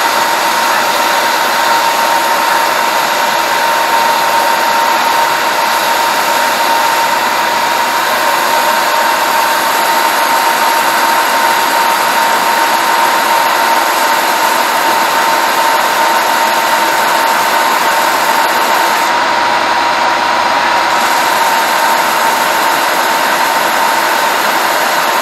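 Bench-top belt and disc sander running steadily while a small piece of wood is held down on its moving belt, a constant whine running through the noise.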